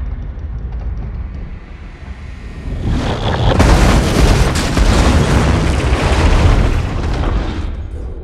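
Film sound effects of a bullet train derailing and crashing. A low rumble builds about three seconds in into a loud, dense crash that lasts several seconds and fades near the end.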